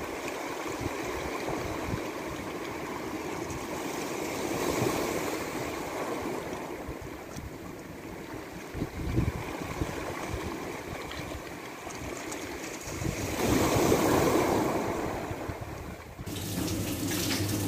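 Sea waves breaking and washing over a pebbly, rocky shore: a continuous surf wash that swells and eases, with the biggest surge about three-quarters of the way through. Near the end it cuts off abruptly to a steady low hum.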